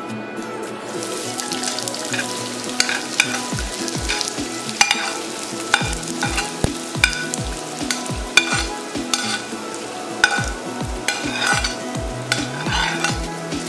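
Chopped red onion dropped into hot oil in a skillet, sizzling steadily from about a second in. A metal spoon scrapes and clicks against a ceramic plate as the last pieces are pushed off.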